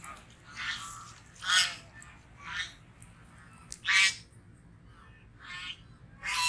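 Goose honking: about six short, harsh calls, roughly one a second, some louder than others.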